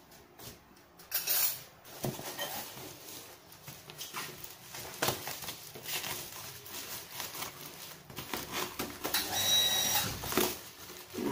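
Plastic parcel wrapping rustling and crinkling as it is handled and cut open with scissors, with louder crackling of the plastic near the end.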